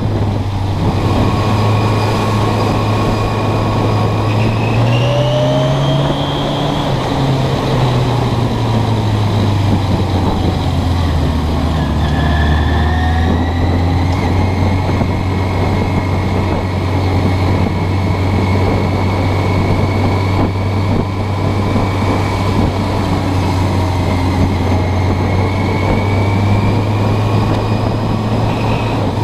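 Suzuki GS650G Katana's air-cooled inline-four engine running while the motorcycle is ridden at low speed in traffic. The engine note rises about five seconds in, drops back over the next few seconds and then holds steady.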